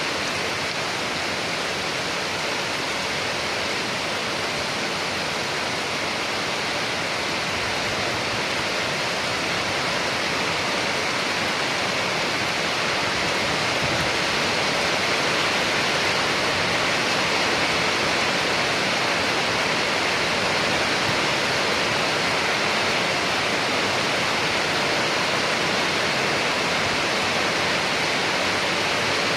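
Steady heavy rain falling, an even hiss with no separate drops or thunder standing out.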